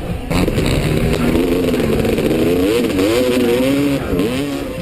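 Several motocross bike engines revving together, their pitch wavering up and down. The sound comes in suddenly just after the start and eases off near the end.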